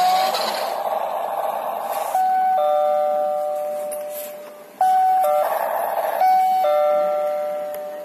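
Toy remote-control school bus's built-in electronic sound effects from its small speaker: a buzzy engine sound, broken by a two-tone ding-dong chime that sounds several times, its lower note held for a second or two.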